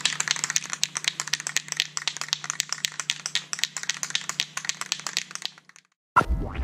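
Rapid, irregular clicking, several clicks a second, over a steady low hum, stopping about five and a half seconds in. A rising whoosh starts just before the end.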